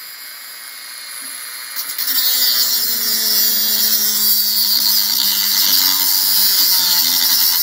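Handheld rotary tool with a small abrasive cut-off wheel cutting through a long steel screw: a steady motor whine that becomes a loud, harsh grinding hiss when the wheel bites into the metal about two seconds in, the motor's pitch sagging slightly under the load.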